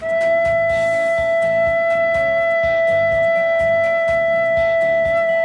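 Plastic soprano recorder holding a single steady E (mi), a clear, nearly pure tone sustained for about five seconds.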